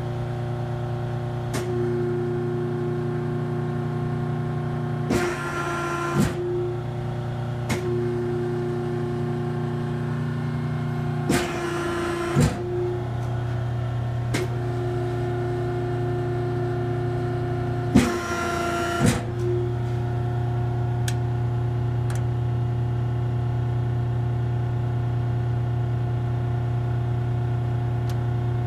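Beam-type hydraulic die-cutting press running: the steady hum of its pump motor, broken three times, about six seconds apart, by a second-long hissing surge as the press cycles, each ending in a knock. A few single clicks come in between.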